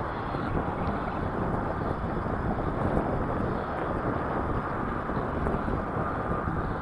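Steady rushing wind noise on the microphone, with an uneven low rumble.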